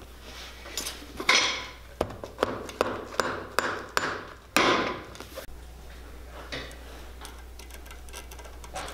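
Hammer tapping small wooden pegs into a boot's new leather sole: about ten sharp, unevenly spaced strikes that stop a little past halfway.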